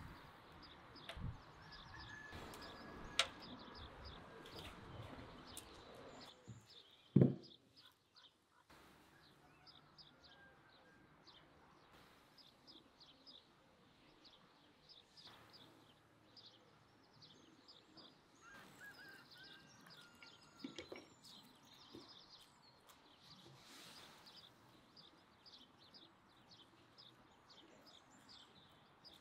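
Birds chirping, with many short, high calls scattered over a faint background hiss. There is one low thump about seven seconds in, after which the sound drops out for about a second.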